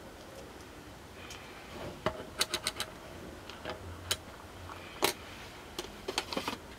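Small plastic clicks from handling a handheld digital multimeter: a quick run of clicks about two seconds in as its rotary selector dial is turned through positions, then scattered sharp taps from the test probes, the loudest about five seconds in.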